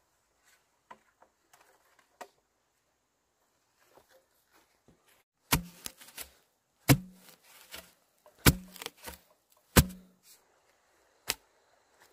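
Bamboo pole being driven into the ground: a few light knocks, then from about the middle four heavy thuds about a second and a half apart, each with a short low ring, with smaller knocks between. One sharper knock comes near the end.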